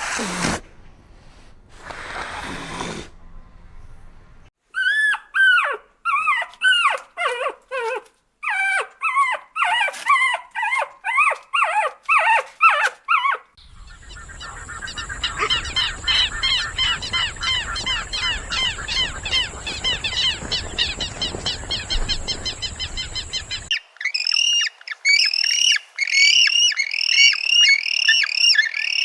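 A run of animal calls in several separate takes: first short falling yelping calls about two a second, then a much faster run of calls over a steady background hiss, and near the end repeated sharp squawks.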